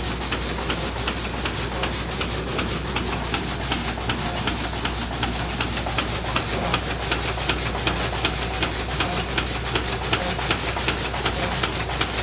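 The steamship Virginia V's triple-expansion steam engine running at about 150 rpm: a steady hiss of steam under a fast, even clicking and knocking from the moving rods and valve gear.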